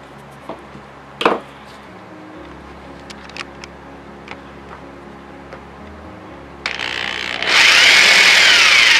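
A marker pen rubbed around a 3/4-inch PVC pipe to mark a cut line: a scratchy rubbing with squeaky rising-and-falling pitch, starting softly about two-thirds through and loud for the last two seconds. A single light knock a little over a second in.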